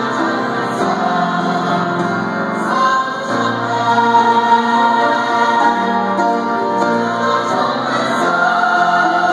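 Mixed church choir of women's and men's voices singing a gospel anthem together, holding long sustained chords that change every few seconds.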